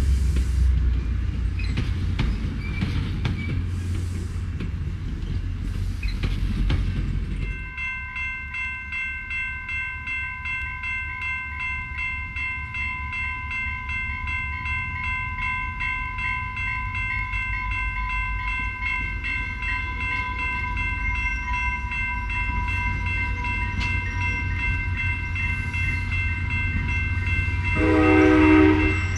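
Rail Runner bilevel commuter train passing at speed, with wheels rumbling on the rails. Then a grade-crossing warning bell ringing steadily at about two strokes a second over the low rumble of the train. Near the end the train sounds a short horn blast as it reaches the crossing.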